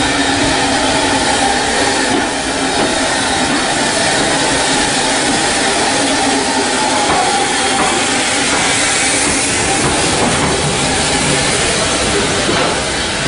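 Steam train close by at a station platform: a steady loud hiss with a rumble under it.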